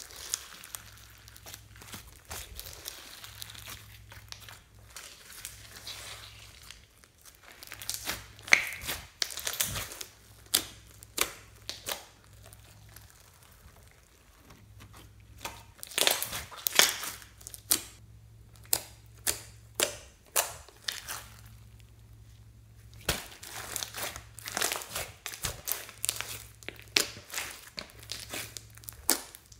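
Hands squeezing, folding and stretching clear glitter slime packed with small beads: sticky crackling and sharp popping as the slime is worked, in busy spells with short lulls between.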